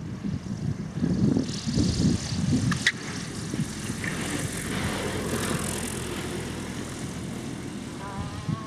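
Motor glider landing on a paved runway and rolling out with its engine running at low power, with wind gusting on the microphone over the first few seconds. There is a short sharp click about three seconds in.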